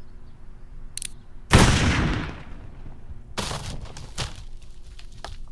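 Gunshots: a short click, then two loud bangs about two seconds apart, each trailing off over about a second.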